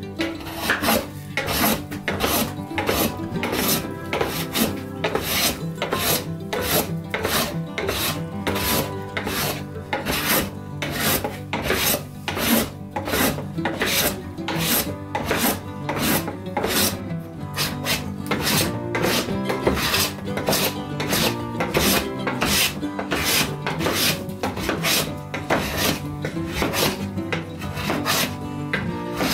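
Rhythmic rasping strokes, a little over two a second, over background music with held notes.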